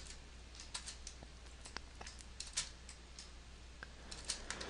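Faint room tone: a low steady hum with a few soft, scattered clicks.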